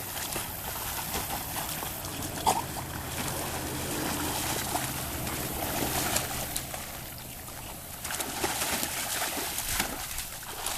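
Water splashing and sloshing as dogs wade and swim through shallow water, with scattered small splashes and clicks.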